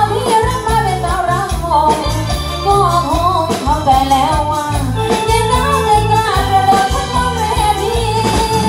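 Live Thai trae wong band music: a voice singing a wavering melody over electronic keyboard and a drum kit keeping a steady beat.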